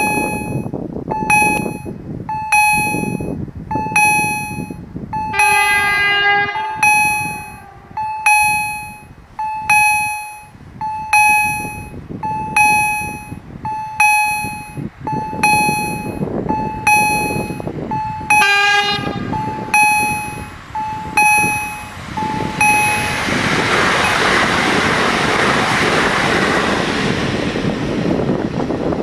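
The electronic warning bells of a Polish level crossing (EHL S10 generators) strike steadily about every 0.7 s. An electric multiple unit's horn sounds twice: a blast about a second long around 5 s in, and a shorter one around 18 s in. From about 23 s the bell strokes are no longer heard and a steady rushing noise takes over.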